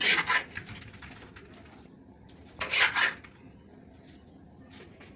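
Steel plastering trowel scraping cement-sand mortar, two short scrapes about three seconds apart.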